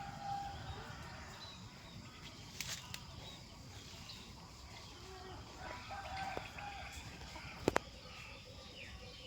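Domestic chicken giving a few short clucking calls, faint, about half a second in and again around six seconds in. Two sharp clicks come about seven and a half seconds in.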